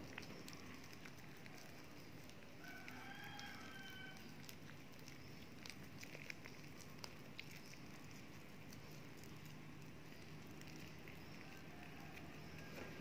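Faint squishing and soft clicks of sticky bread dough being squeezed and shaped by hand, over a low room hum. About three seconds in, a faint animal call lasts about two seconds.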